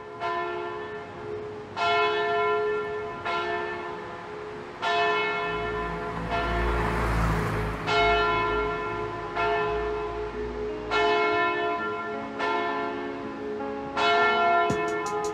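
Church bells ringing, one stroke about every one and a half seconds, each ringing on into the next. A low rumble runs under the middle of the peal.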